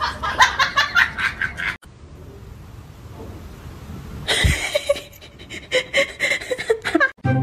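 A person laughing in quick bursts that stop abruptly about two seconds in; after a quieter stretch, laughter starts again just past halfway and runs almost to the end.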